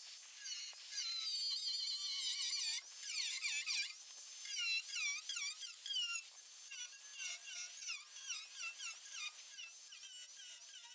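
A 4.5-inch angle grinder with a cutoff wheel cutting through rusty sheet metal. It makes a high-pitched whine that wavers and swoops up and down in pitch over and over as the wheel bites.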